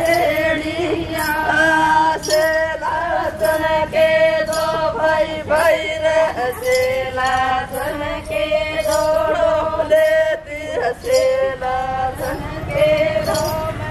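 A group singing a Lambadi folk song together, with voices joining in unison, over regular sharp beats that keep the dance rhythm.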